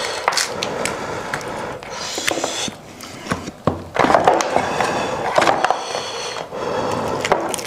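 Eating sounds from a cooked goat's head being pulled apart by hand: meat and skin tearing, with many short, sharp cracks and clicks of bone and cartilage.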